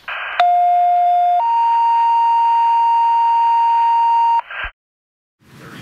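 Fire dispatch two-tone page over a radio: a short burst of radio static, a steady lower tone for about a second, then a higher steady tone held for about three seconds, ending in another burst of static.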